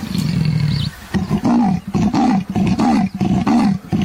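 Leopard calling: a low drawn-out call, then from about a second in a run of short repeated calls, about two a second.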